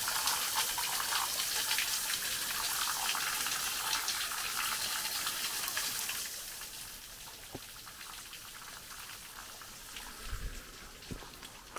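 Small waterfall trickling and dripping off a sandstone rock ledge, a steady splashing hiss that fades away after about six seconds. A few soft thumps come near the end.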